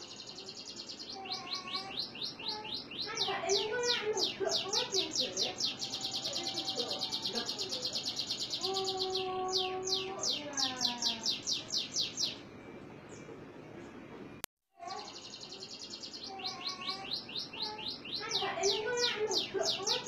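Caged domestic canary singing: long runs of rapid, repeated high trills, changing from one trill to the next, with a short break about two-thirds of the way through.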